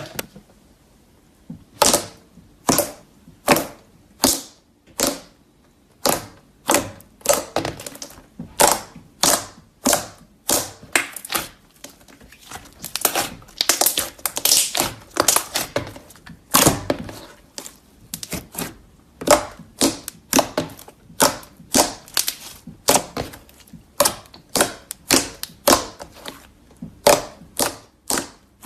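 Slime being pressed and squeezed by hand, letting out sharp, crisp pops about once a second, with a denser run of crackling pops partway through.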